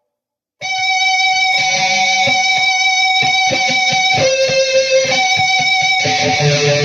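Electric guitar played through a Peavey VYPYR X2 amplifier. It comes in abruptly about half a second in, after a moment of silence, with sustained notes that shift in pitch every second or so.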